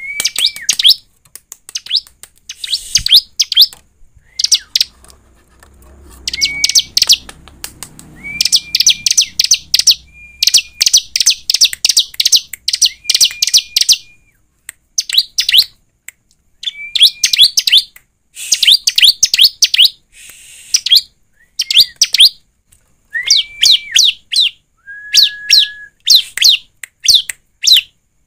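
Bar-winged prinia (ciblek) singing: repeated phrases, many opening with a short level whistle and breaking into a fast train of sharp, high chirps, with short pauses between phrases. Near the end one longer, lower whistle is held.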